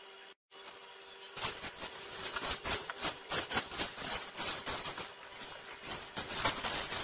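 Packaging being handled while a keyboard is unboxed: irregular rustling and crackling that starts about a second and a half in and goes on busily.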